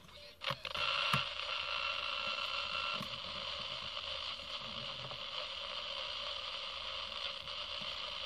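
Tetley portable AM/FM clock radio's speaker giving a steady static hiss between stations as its tuning dial is turned, starting with a click about a second in. Faint steady whistles come and go in the hiss.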